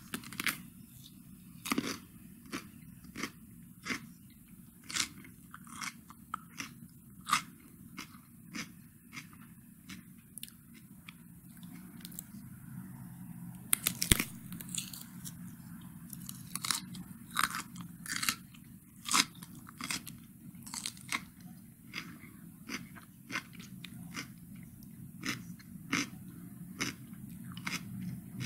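Cucumber being bitten and chewed: crisp, wet crunches in an irregular string of about one to two a second, with the loudest bites about halfway through.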